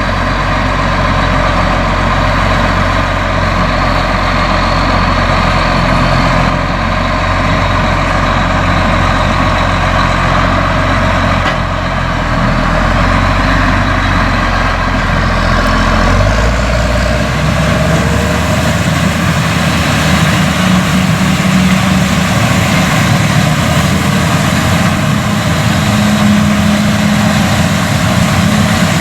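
Case IH 215 Magnum tractor's diesel engine running steadily while pulling a BOB 46 pull-type bean combine whose machinery is working. About halfway through, the deep hum gives way to a higher steady drone.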